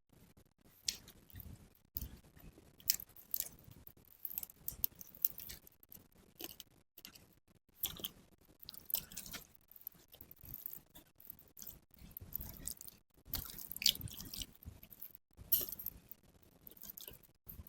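A person chewing food close to the microphone: irregular bites and sharp mouth clicks, with no talking.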